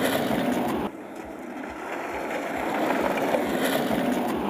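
Downhill skateboard wheels rolling on asphalt at speed, a steady rushing noise. It drops abruptly about a second in, then builds up again as riders come through.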